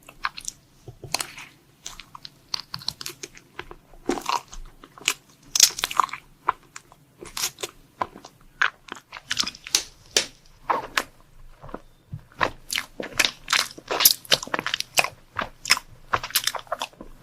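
Close-miked eating of crunchy dessert food: many sharp crunches and chewing sounds in quick, irregular succession, with a short lull near the middle.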